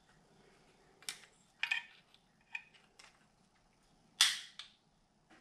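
Sharp metallic clicks and a clank from a hand wrench working the 10 mm cam chain tensioner bolt on a Honda CB550 engine. There are about five separate strikes, the loudest about four seconds in.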